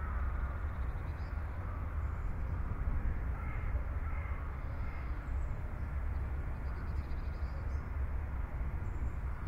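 Rolls-Royce Camargue's 6.75-litre V8 idling with a steady low rumble. A few faint bird calls sound over it around the middle.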